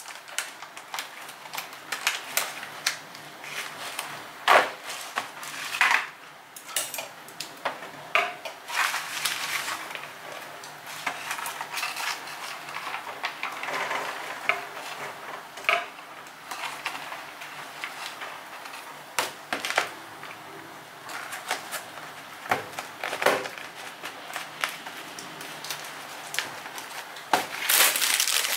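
Thin plastic food containers and lids handled on a wooden countertop: scattered clicks, light knocks and plastic crackles as a seal is peeled and bean sprouts are moved between tubs. Near the end a plastic produce bag crinkles loudly.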